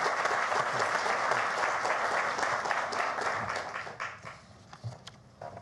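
Audience applauding, then dying away about four seconds in, leaving a few faint knocks.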